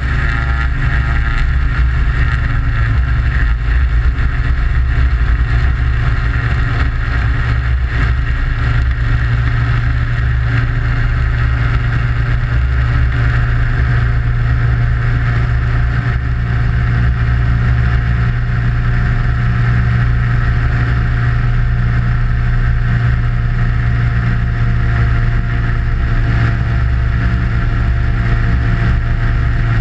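Aventura amphibious ultralight's engine running steadily at high power as the aircraft lifts off the water and climbs, a continuous drone with no change in pitch.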